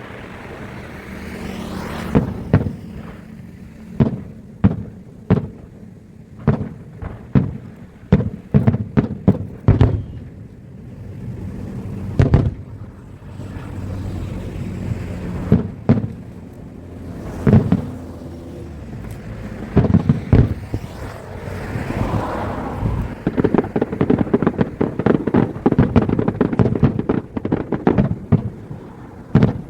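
Aerial fireworks bursting: a long irregular series of sharp bangs, some with a rumbling tail, building near the end into a dense run of rapid bangs and crackling.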